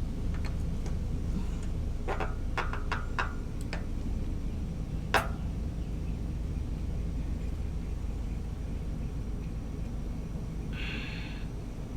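Hand tools and metal parts being handled at a motorcycle's oil filter: a quick run of light clicks and knocks, one sharp click a little later, and a short rustle near the end, over a steady low hum.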